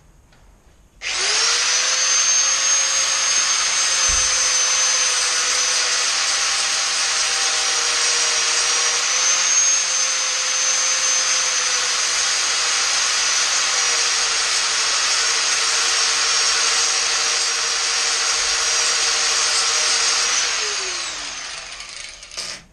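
Handheld grinder cutting through a motorcycle drive chain. The motor starts about a second in, runs steadily under load with a high whine, then winds down near the end.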